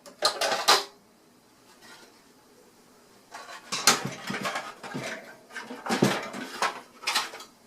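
Plastic covers being pried and pulled off a budget hobby sewing machine: short clicks, knocks and clattering plastic, with a pause of about two seconds before a longer run of handling.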